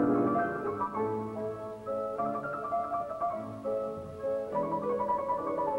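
Background piano music: a gentle melody of sustained notes.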